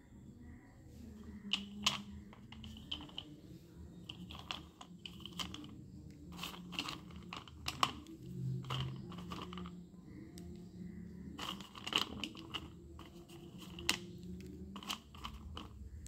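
Wet slate pencils clicking and clattering against one another and against a stainless-steel bowl as they are handled. The clicks come irregularly, several bunched together at a time.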